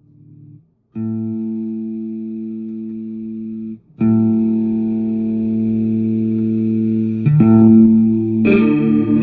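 Electric guitar played through an ADA Pitchtraq pitch-shifting effects unit: two held chords ring out for about three seconds each, then quicker notes follow near the end.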